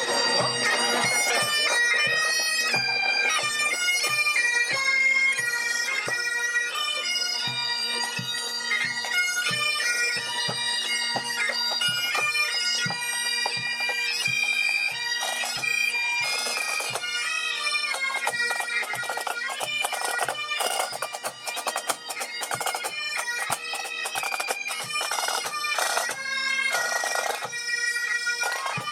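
Pipe band playing: Great Highland bagpipes play a tune over their steady drones, with drums beating regularly underneath.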